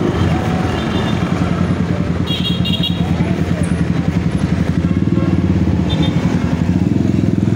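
Yamaha Mio Aerox S 155 scooter's single-cylinder engine running while riding, a steady pulsing engine note that grows a little louder from about five seconds in.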